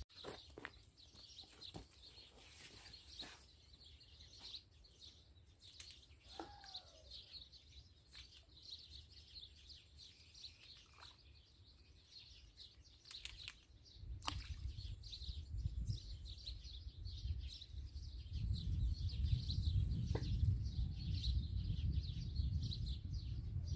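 Birds chirping in a faint, continuous chatter, with one falling call. A low rumble comes in about halfway through and grows louder.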